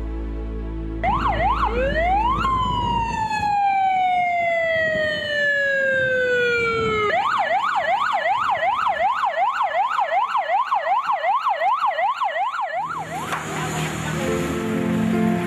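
Electronic ambulance siren. It starts with a quick warble and a rise, then one long falling wail over about four seconds. Next comes a fast yelp of about three rises and falls a second, which cuts off suddenly near the end and gives way to music.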